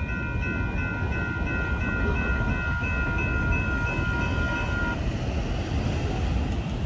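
Electronic railroad crossing bell dinging rapidly and evenly, about three strokes a second, while the crossing signals flash; it stops about 5 seconds in. A steady low rumble runs underneath.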